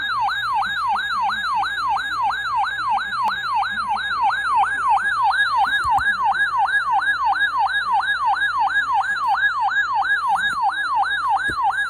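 Weather radio alert siren: an electronic tone sweeping rapidly up and down, about three sweeps a second, sounding the alarm for a new severe thunderstorm watch. It cuts off suddenly at the end.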